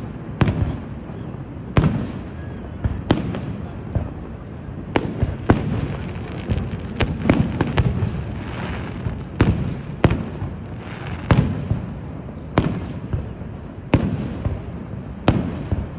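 Fireworks bursting overhead: a dozen or more sharp bangs, roughly one a second and sometimes in quick pairs, with a low rumble between them.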